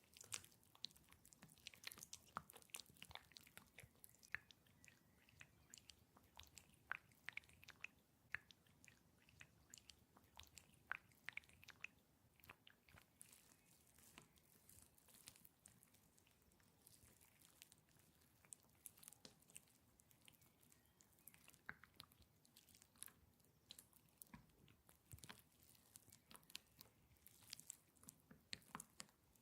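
Faint, wet, sticky squishing of massage gel worked between hands: a dense, irregular stream of soft clicks and crackles throughout.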